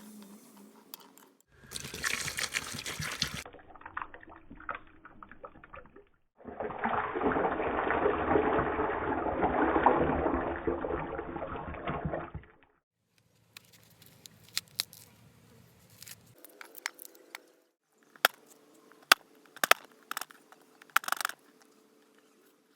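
Liquid poured into a jar, first briefly and then in a steady pour lasting about six seconds, followed by scattered clicks and knocks.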